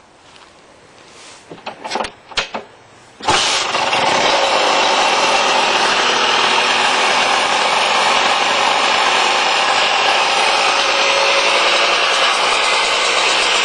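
Highly modified 1984 Honda 250R two-stroke single-cylinder engine in an ATC 70 three-wheeler being started. A few short sharp sounds come first, then it fires about three seconds in and runs steadily and loudly.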